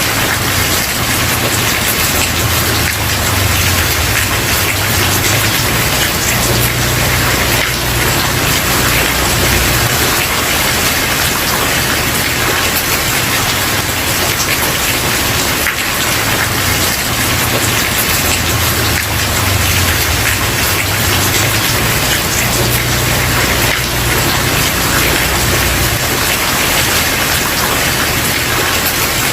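Steady heavy rain falling on a wooden porch, a dense even hiss with a low rumble underneath that swells and fades every few seconds.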